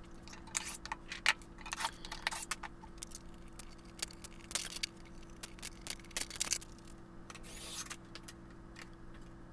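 Irregular clinks and knocks of cast iron sewing machine treadle frame parts and loose bolts being handled and set down on a wooden workbench, over a steady low hum.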